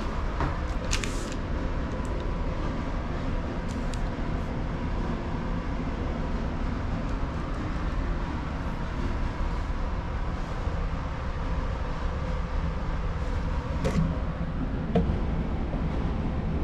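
Steady low drone of a ferry's onboard machinery heard inside a cabin, with a few faint steady tones in it. A few light clicks and taps come about a second in, around four seconds in, and twice near the end.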